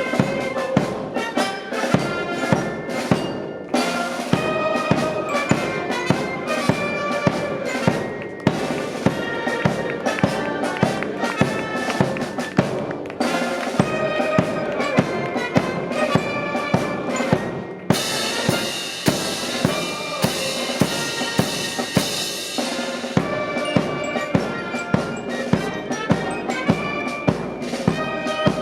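Military brass band playing a march: brass carrying the tune over a steady beat of bass drum and snare, about two beats a second, with cymbals joining in for a few seconds about two-thirds of the way through.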